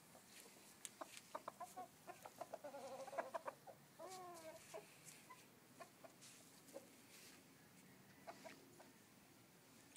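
Chicken clucking: a run of short, quick clucks over the first few seconds, a brief wavering call about four seconds in, then scattered single clucks.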